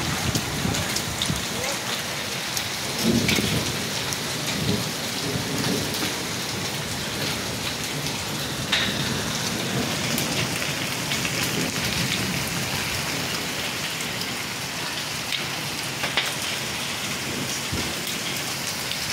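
Rain mixed with small hail falling steadily: a dense, even hiss with many small sharp ticks of hailstones striking the paving and hard surfaces.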